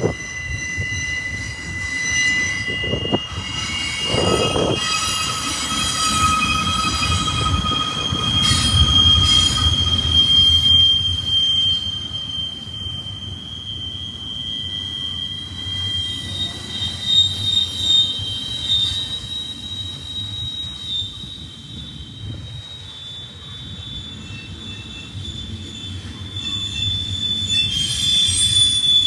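Double-stack container well cars of a freight train rolling past, their wheels squealing in several high, steady tones that shift pitch now and then, over the low rumble of steel wheels on rail.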